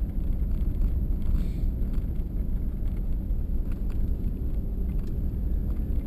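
Steady low rumble of engine and road noise inside the cab of a moving truck.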